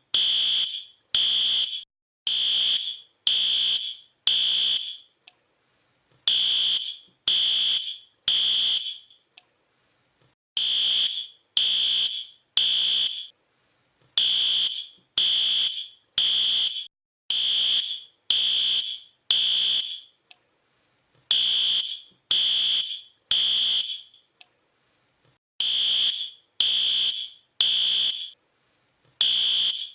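Fire alarm sounding: loud, shrill, high beeps about one a second, mostly in groups of three with short pauses between the groups, the evacuation pattern of a smoke or fire alarm.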